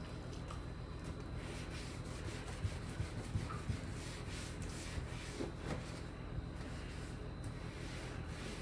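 Rubbing and wiping with a few light knocks and clicks, as of surfaces being cleaned by hand, over a steady low hum.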